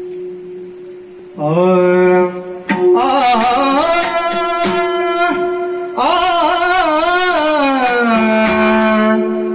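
A male voice singing a slow Marathi kirtan melody in long, wavering held notes over a steady drone note, coming in about a second and a half in and pausing briefly twice.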